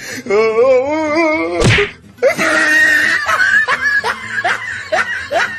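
A single sharp punch hit about a second and a half in, between stretches of pitched music: a long wavering note before it and quick repeated rising notes after it.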